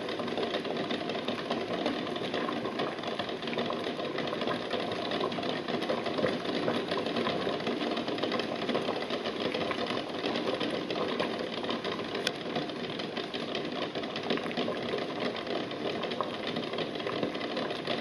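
Water at a rolling boil in a stainless steel pot, bubbling hard, with eggs jostled by the boil rattling and knocking against the pot in a steady fast patter.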